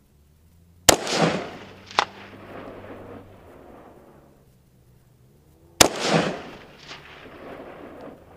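Two rifle shots from an ArmaLite AR-15 SPR Mod 1 in 5.56 mm, about five seconds apart. Each is a sharp report followed by an echo that rolls off the hills for a couple of seconds. A second, smaller sharp crack comes back about a second after the first shot.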